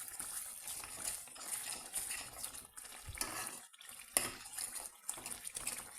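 A spoon stirring tomato paste into curry sauce in a pot, with irregular scrapes and knocks against the pot, one sharper knock about four seconds in.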